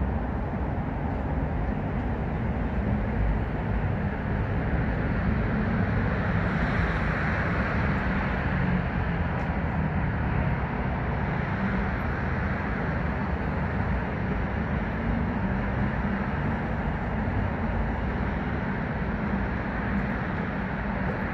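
Steady low rumble and hiss of city traffic, swelling slightly about six to nine seconds in.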